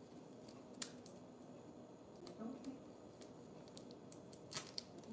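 A small plastic bag of trading cards being cut open with a knife: scattered sharp clicks and crinkles of plastic, one click a little under a second in and a quick cluster near the end.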